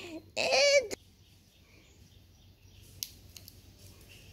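A high-pitched wordless voice, warbling briefly up and down near the start, then low room quiet with a few faint clicks about three seconds in.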